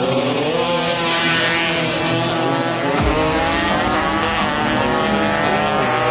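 Tuned drag-bike engines revving hard under acceleration, the pitch climbing steadily, with more than one engine note overlapping. A low rumble comes in suddenly about three seconds in.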